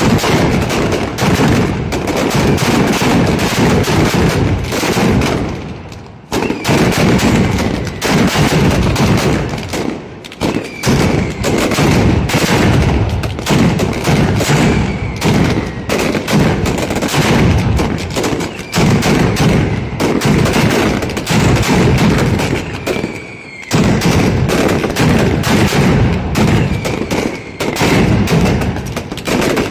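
Mascletà firecrackers going off in a rapid, almost unbroken barrage of bangs, like machine-gun fire. The barrage dips briefly about six, ten and twenty-three seconds in.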